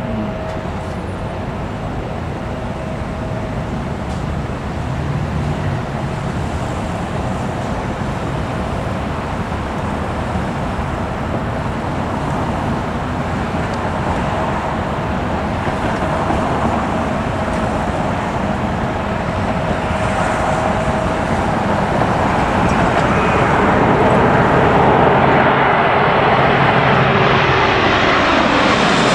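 Twin-engine wide-body jet airliner on final approach with its landing gear down, coming in low overhead: a steady rush of jet engine noise and air that grows louder throughout, with a thin steady whine that gives way near the end to falling pitch as the jet passes over.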